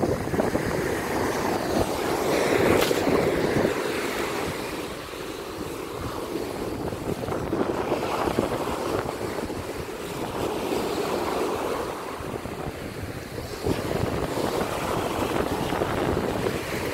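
Sea waves washing on the shore, the surf noise swelling and fading every few seconds, with wind buffeting the microphone.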